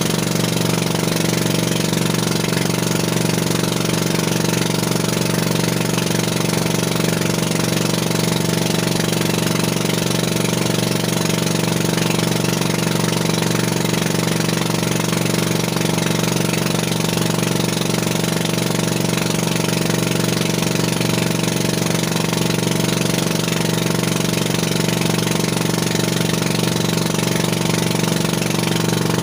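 A motorized outrigger boat's engine running at a constant speed, with a steady hiss of wind and water rushing past the moving boat.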